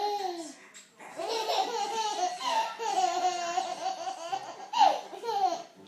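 A toddler laughing in high-pitched bursts, with a short pause about a second in and the loudest burst near the end.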